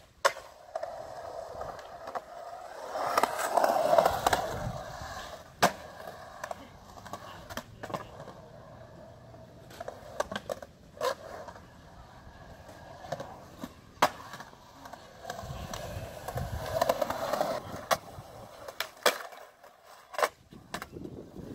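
Skateboard wheels rolling on concrete, the rolling noise swelling twice as the board picks up speed, with repeated sharp clacks of the board striking the ground and ledges.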